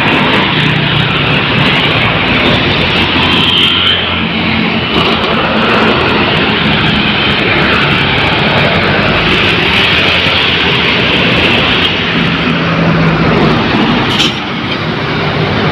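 Heavy road traffic passing close by: bus and truck engines with tyre and road noise, loud and steady throughout.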